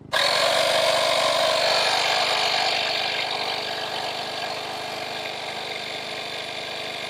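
DBPOWER 12V portable air compressor switched on, starting abruptly and running steadily as it pumps air into a car tyre. It is loudest for the first few seconds, then settles a little quieter.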